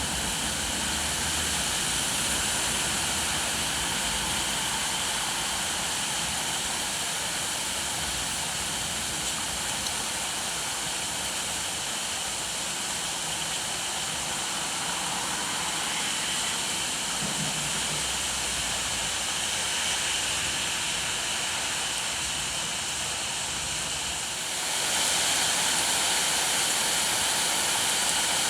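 Rain falling steadily: an even hiss that becomes louder and brighter near the end.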